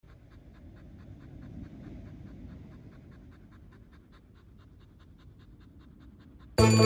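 Golden retriever puppy panting rapidly, about four pants a second, over a low background rumble. Music starts abruptly near the end.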